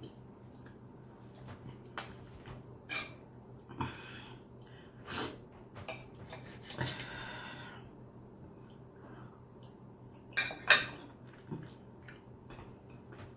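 Cutlery clinking and scraping on a plate during a meal of steak: scattered separate clinks, a longer scrape about seven seconds in, and two louder clinks close together near the end.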